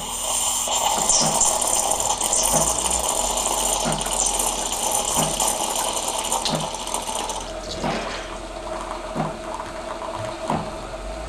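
Mezzoli ME-710 automatic milk frother steaming milk: a strong steam hiss over a pump knocking about every two-thirds of a second. The hiss cuts off about two-thirds of the way through, leaving the pump running with a steady hum.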